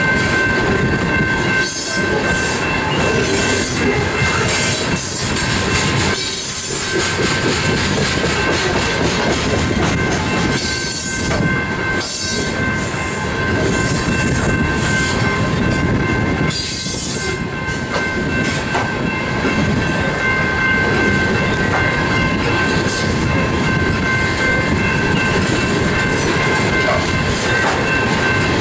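Coal train cars rolling steadily past on a curve, with a continuous high-pitched squeal of wheel flanges against the curved rail over the rolling noise.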